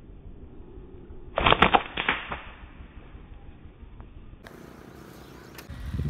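A slingshot being fired: a sharp snap of the rubber bands on release, followed by about a second of quick, loud clacking and rustling.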